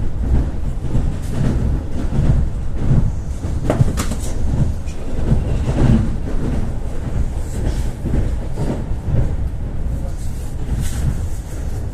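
Ivolga 4.0 electric train running between stations, heard inside the carriage: a steady low rumble, with a sharp click about four seconds in.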